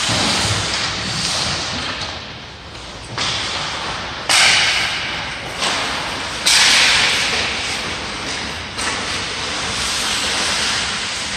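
Hockey skates scraping and carving on rink ice: a string of hissing scrapes that each start suddenly and fade, the loudest about four and six and a half seconds in.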